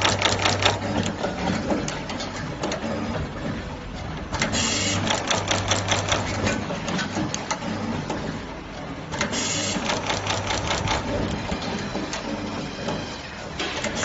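Automatic multicore cable stripping and crimping machine running through its cycles: bursts of rapid mechanical clattering roughly every five seconds, over a steady hum.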